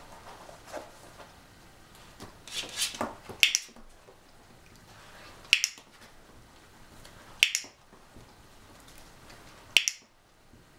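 Dog-training clicker giving four sharp clicks a couple of seconds apart, each marking the Italian greyhound's nose touch on the target, with a short rustle before the first click.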